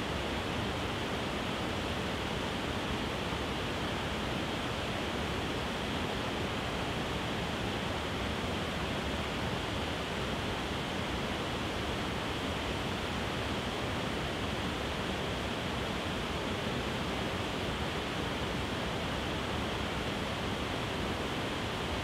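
Waterfall cascading over several rock ledges into a pool: a steady, even rush of falling water.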